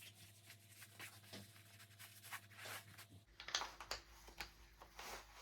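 Faint rubbing and scraping of a thin nylon-webbing belt being threaded through trouser belt loops, in short strokes, with a few sharper scrapes after about three seconds.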